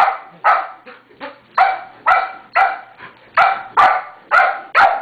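A Border Collie/Golden Retriever mix dog barking over and over in quick succession, about two or three sharp barks a second.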